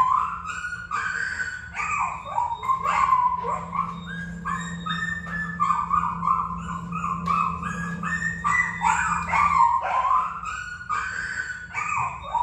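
Puppies whimpering and yelping in an unbroken string of short, high, sliding cries, which seem to be a recording played for the dogs. A steady low hum runs underneath.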